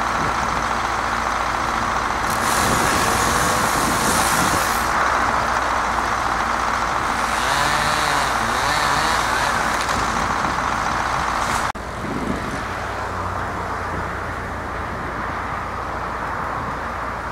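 Engine of a truck-mounted aerial lift running steadily, with two stretches of loud hissing over it. The level drops suddenly about two-thirds of the way through.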